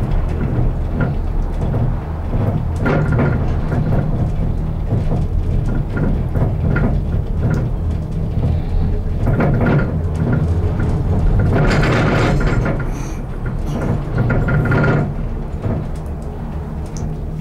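BreckConnect gondola cabin running along its cable: a steady low hum with several spells of rattling and clattering, the longest and loudest from about twelve to fifteen seconds in.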